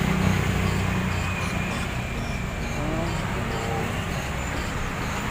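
Steady motor-vehicle engine hum and road traffic noise, with faint distant voices.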